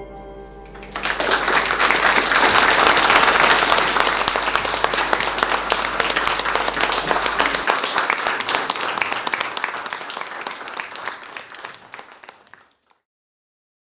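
Audience applauding, the clapping starting about a second in as the last chord of a piano trio (piano, violin and cello) dies away, then thinning and fading out near the end.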